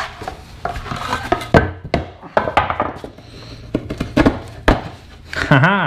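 Hard plastic trim board being handled on a wooden block: irregular knocks and thuds as it is shifted, lifted and set down, with the rustle of drilling chips being brushed off. A brief vocal sound near the end.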